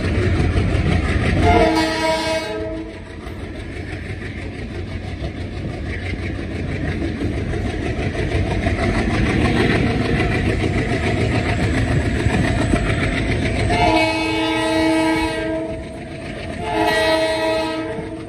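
Diesel locomotive horn hauling a passenger train, sounding three times: a blast about two seconds in, then two more close together near the end, each with several tones at once. Under the horn is the steady rumble and wheel clatter of the moving coaches.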